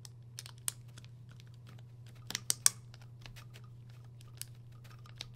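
Small, irregular plastic-and-metal clicks as a small Phillips screwdriver drives a screw into a plastic hatch-light slider and hands handle the part, with a cluster of sharper clicks about two and a half seconds in.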